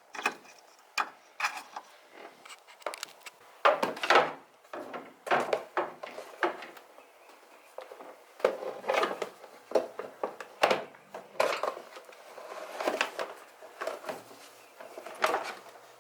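Irregular clinks, knocks and scrapes of hand tools and metal parts being handled during engine-bay reassembly.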